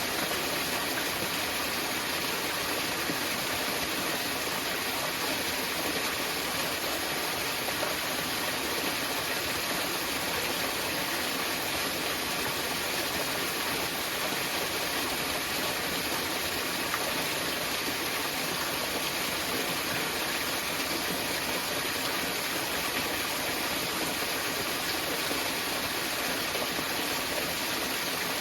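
Small mountain waterfall splashing and rushing steadily, a constant hiss of falling water with no let-up.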